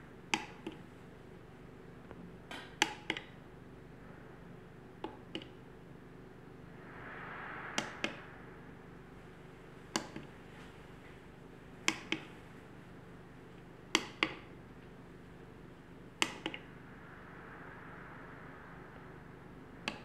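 Push buttons on a 2.4G LED-wristband remote controller clicking as they are pressed, sharp clicks mostly in pairs about every two seconds over a faint steady hum.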